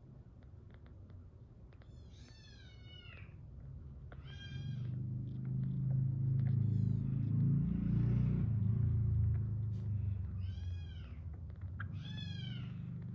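Newborn kittens giving about five short, high-pitched mews, each rising and falling. A loud low rumble starts about five seconds in and fades about five seconds later.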